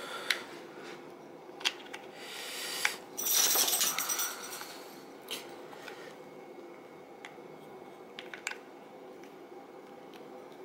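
Small metal parts of a Marswell Model 1914 pump shotgun being handled and fitted by hand: scattered sharp metallic clicks and clinks, with a louder scraping rustle from about two and a half to four and a half seconds in.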